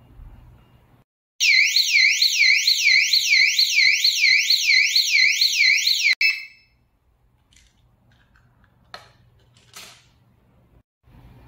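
Solar-powered alarm siren sounding a loud electronic wail that sweeps rapidly up and down, about three times a second; it starts about a second and a half in, runs for about five seconds and cuts off abruptly.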